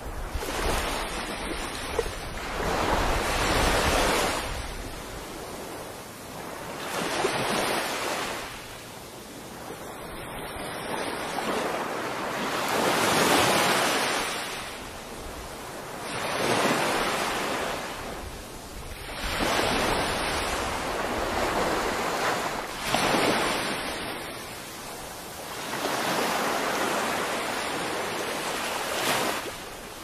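Small waves breaking and washing up over a sandy beach, the surf swelling and fading every few seconds.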